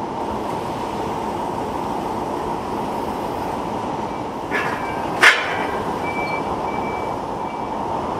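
Forklift running steadily over factory machinery noise, with two sharp metal clanks a little past the middle, the second louder, as a large yarn warp beam is set into its hanging slings.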